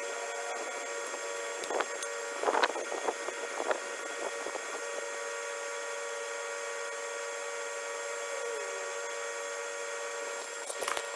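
A steady mechanical hum with several constant whining tones, and a few light taps in the first four seconds.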